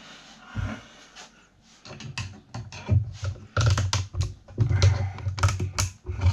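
Rapid, irregular clicks and knocks of a desk fan motor's metal parts being handled and taken apart by hand, with dull thuds of parts bumping the bench, starting about two seconds in.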